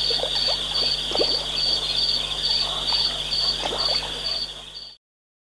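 Night chorus of frogs and insects: a steady high trill with a higher chirp pulsing about twice a second, and scattered short falling calls lower down. The sound cuts off suddenly near the end.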